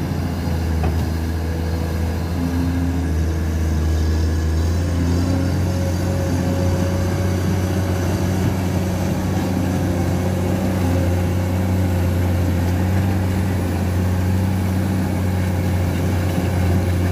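Komatsu PC210 excavator's six-cylinder diesel engine running steadily close by, with a slight change in its tone about four to five seconds in.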